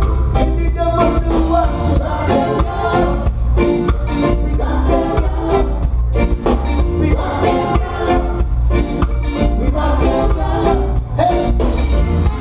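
Live reggae band playing, with a heavy bass line, steady drum hits and a male lead vocal.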